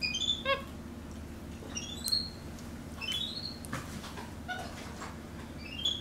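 Capuchin monkey giving short, high-pitched rising chirps, about four of them spread through the few seconds.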